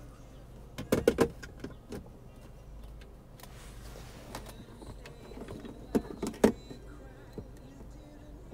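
Plastic clicks and knocks from handling and plugging in an in-car accessory charger: a cluster about a second in and another about six seconds in. A faint thin high tone sets in from about four seconds.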